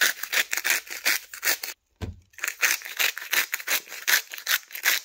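Salt going onto ribeye steaks: quick, scratchy grinding strokes, several a second. There is a brief break about two seconds in.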